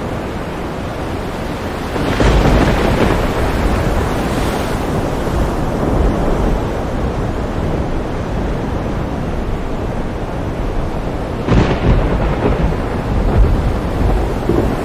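Thunder rumbling over a steady rush of wind. A louder rumble swells about two seconds in, and another starts sharply about three quarters of the way through.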